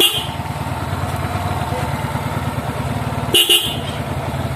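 Pair of Denso dual-tone disc horns wired to a motorcycle, each on its own relay, sounding loud: one short blast right at the start and a quick double toot about three and a half seconds in. Under them the motorcycle's engine idles steadily.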